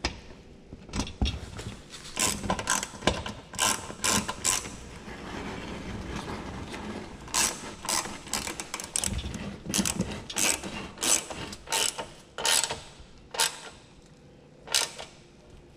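Hand ratchet with a socket extension clicking in short bursts as it turns the screws of a plastic under-engine splash shield. There is a longer, steadier run of ratcheting about five seconds in.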